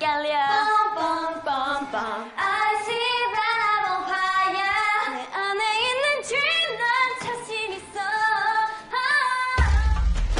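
Young women singing a bright pop song, voices taking the lines in turn over light accompaniment with little bass, until a heavy bass beat comes in near the end.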